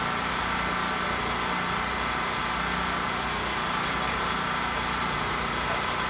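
Steady mechanical hum and hiss, like a motor running, that does not change, with a few faint ticks.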